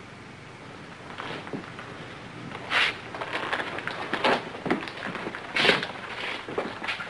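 Several men's boots walking across wooden floorboards: irregular footfalls and heel clacks starting about a second in and getting louder.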